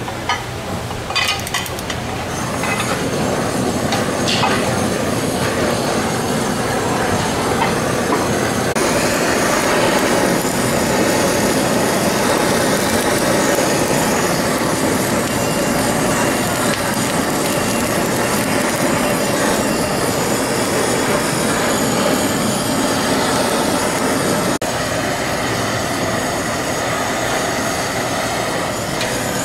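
Emperor crab meat searing on a hot griddle: loud, steady sizzling and hissing, with a few clicks of handling in the first couple of seconds.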